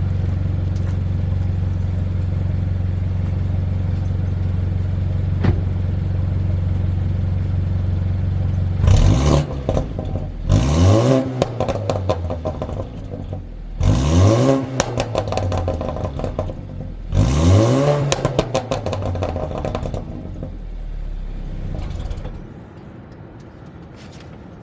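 BMW 328xi's N26 turbocharged four-cylinder, fitted with a downpipe, idling steadily, then revved four times, each rev rising quickly and falling back. It settles back to idle, and the sound gets quieter near the end.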